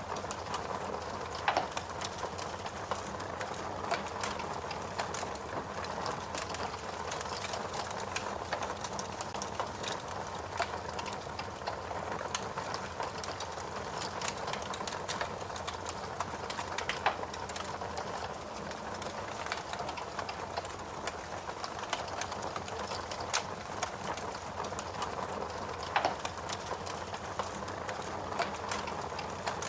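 Wood fire crackling steadily: a constant hiss with dense small crackles and now and then a louder pop.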